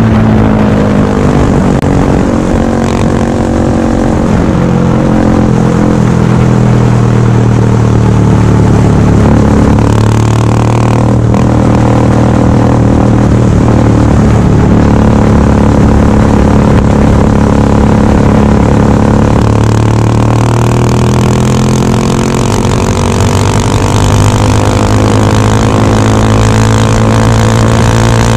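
KTM Duke 390's single-cylinder engine running loud through a Remus S-Flow slip-on exhaust with its silencer insert removed, while the bike is ridden along the road. The engine note rises and falls as the rider accelerates and eases off.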